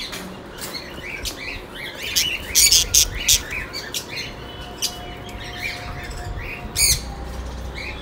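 Budgerigars chattering with rapid short chirps, broken by a few loud harsh squawks about two and a half seconds in and again near the end.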